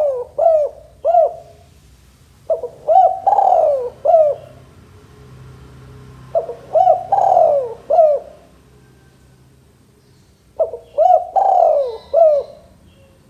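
Male spotted dove cooing: phrases of a few short coos around one longer coo that falls in pitch, repeated about every four seconds. One phrase ends just after the start and three more follow.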